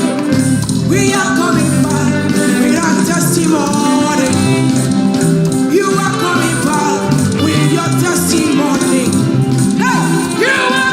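Upbeat celebratory gospel music with singing, played as the service closes.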